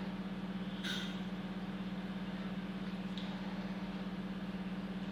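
A steady low hum, and about a second in a short hiss as a metered-dose inhaler is fired into a spacer and the puff is breathed in gently. There is no whistle from the spacer, the sign that the breath is slow enough.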